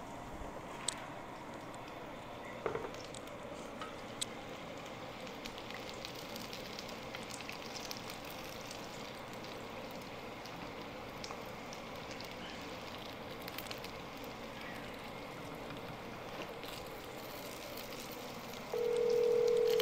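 Baigan (eggplant) frying in hot oil: a steady sizzling hiss with scattered small crackles and pops. Near the end, a steady telephone tone sounds for about two seconds, louder than the frying.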